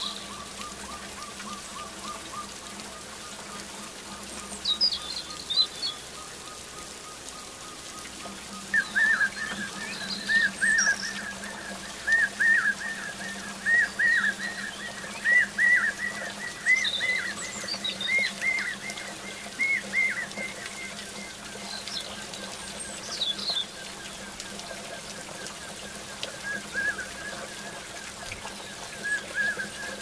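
Forest birds calling. One bird repeats a short whistled note about twice a second, louder through the middle and fading later, over scattered higher chirps from other birds.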